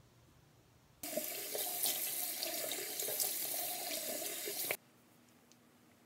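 Bathroom sink faucet running into the basin as a mud face mask is rinsed off. The water starts abruptly about a second in and cuts off suddenly about a second before the end.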